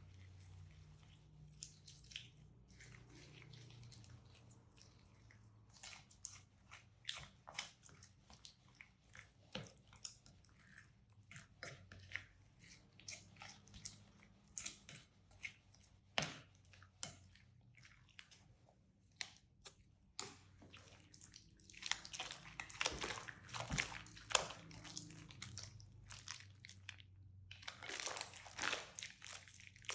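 Slime being mixed and squished, with irregular sticky crackling and popping clicks that come thicker and faster in two spells in the second half.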